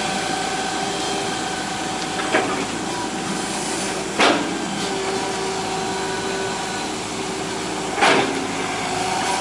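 Hitachi EX120 hydraulic excavator working, its engine and hydraulics running steadily with a whine that shifts in pitch. Sharp metal clanks come three times, about two, four and eight seconds in.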